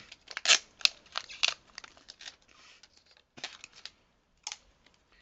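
Adhesive tape being pulled off the roll and torn: a run of short ripping sounds, most of them in the first two seconds and sparser afterwards.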